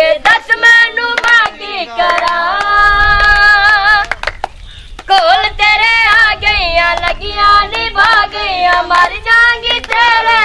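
Voices singing a Punjabi song, with hands clapping along. The singing breaks off briefly about halfway through, then resumes.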